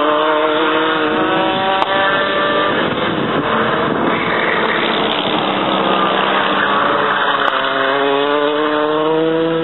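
Go-kart engines running at racing speed on the track. The engine note climbs in pitch as a kart accelerates over the first couple of seconds, dies back in the middle, then climbs again near the end as another kart comes on the throttle.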